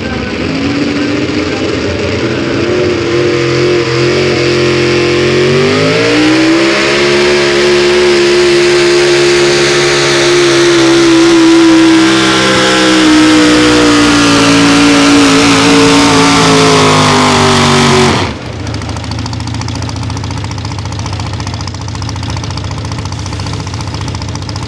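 A pulling vehicle's engine at full throttle through a sled pull: its pitch climbs in two steps, holds high and loud while sagging slightly under load, then drops off abruptly about eighteen seconds in as the throttle is let off, leaving a lower steady engine noise.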